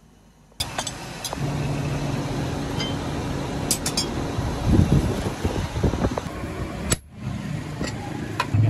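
Forge air blower running steadily with a low hum as it blows air into a coal fire, starting suddenly about half a second in, with a few sharp metallic clicks over it.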